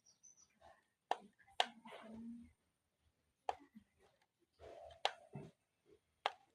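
Five sharp clicks and light knocks of handling, spread a second or so apart, with soft rustling between.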